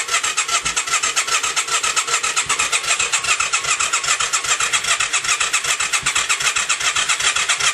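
Yamaha XV535 V-twin being cranked over by its electric starter: a steady, rhythmic chugging of about seven or eight beats a second that never catches and runs. The engine won't start after a starter clutch replacement.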